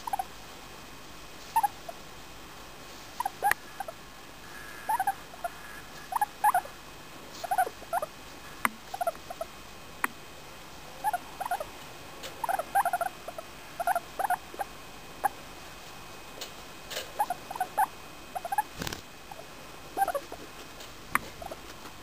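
English crested guinea pig making short, soft calls in little clusters of two to four, with pauses between, while being stroked: contented, happy noises.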